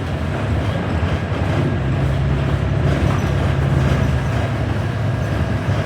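Inside a New Flyer XD40 city bus on the move: the steady low drone of the bus's engine and driveline with tyre and road noise. A low hum swells about two seconds in and eases off near the end.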